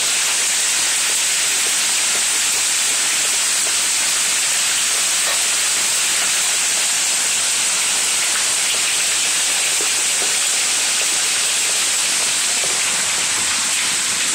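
Heavy rain pouring down in a steady, even hiss, with water running over hail-covered ground.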